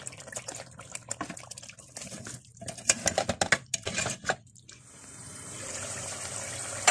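Raw chicken pieces sloshing into wet masala in a metal pot and being stirred with a metal ladle, with clinks and knocks of the ladle against the pot. About five seconds in this gives way to a steady sizzle of the chicken frying in the masala, growing slightly louder.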